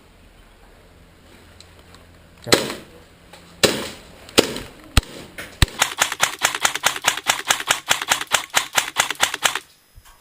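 Airsoft guns firing: three separate single shots, then a long rapid burst of automatic fire that stops just before the end.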